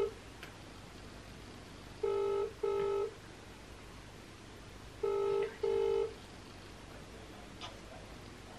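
Telephone ringback tone through a smartphone's loudspeaker while an outgoing call waits to be answered: two double rings, each a pair of short beeps, about three seconds apart. A faint click near the end.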